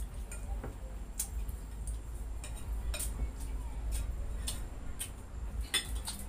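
Scattered light clicks and taps of plates, bowls and a glass being handled while people eat by hand, over a steady low hum.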